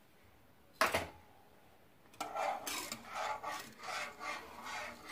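A spoon knocks once against the pan, then scrapes the pan in rhythmic strokes, about two to three a second, as a pan of thickened, reduced milk is stirred.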